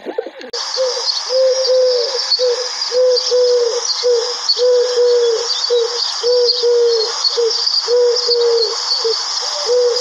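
Eurasian collared dove cooing its three-note call over and over, a short note, a long stressed note and a short note, about one phrase every second and a half. Small birds chirp faintly in the background.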